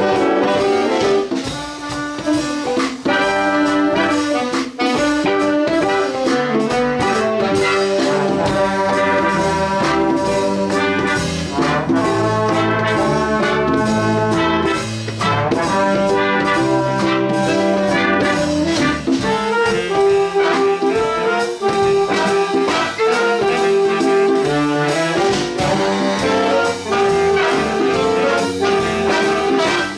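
Big band playing, with trombones and trumpets carrying held notes over a steady drum beat.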